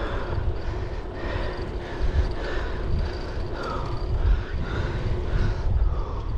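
Wind buffeting the microphone on a moving bicycle, a continuous fluctuating rumble, with rolling road noise underneath.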